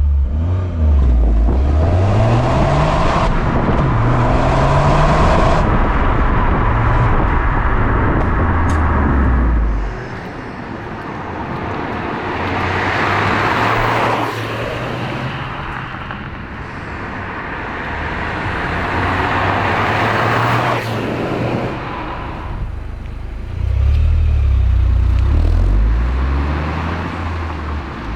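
Toyota GR Yaris's turbocharged 1.6-litre three-cylinder running through a Milltek GPF-back exhaust. It accelerates hard with revs rising in steps through the gears, drops to a quieter run with two brief swells of noise, then comes back loud on the throttle near the end.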